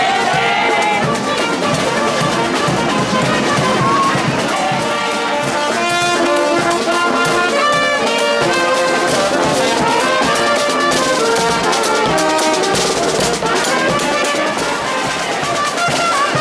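Street brass band playing a tune: trumpets, saxophone and sousaphone over a bass drum beat.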